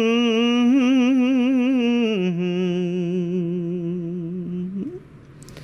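A monk's voice chanting in Khmer sermon style, holding a long melismatic note with a wavering vibrato. It steps down to a lower held note about two seconds in and fades out near the five-second mark. A short hiss follows at the very end.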